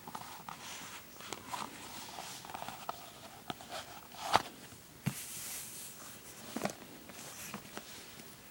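Thin Bible pages and a calfskin cover being handled: faint, irregular clicks and soft taps, with a brief paper rustle about five seconds in.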